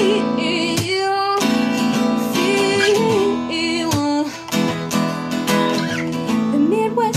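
Acoustic guitar strummed in a steady rhythm, with a voice singing a melodic line over it that has no recognisable words, wavering in pitch on held notes.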